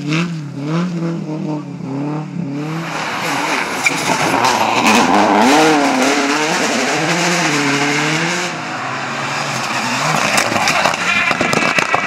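Rally cars at full throttle, one after another, engines revving high and rising and falling in pitch through gear changes and lifts. From about three seconds in, a loud rush of tyre and gravel noise runs under the engine.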